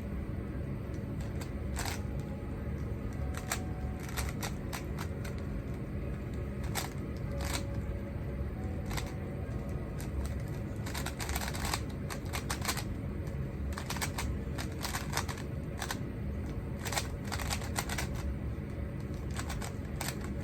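A Rubik's cube turned quickly by hand during a timed solve: runs of rapid plastic clicks and clacks with short pauses between them, over a steady low hum.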